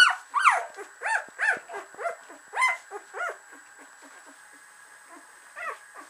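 Thirteen-day-old Samoyed puppies whining: short squeaky cries that rise and fall in pitch, about two a second for the first three seconds, then one more cry near the end.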